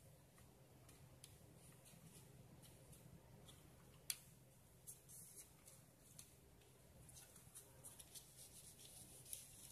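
Near silence with faint plastic handling noise from a Targus wireless mouse being turned over in the hands, with a sharper click about four seconds in and a run of small clicks near the end.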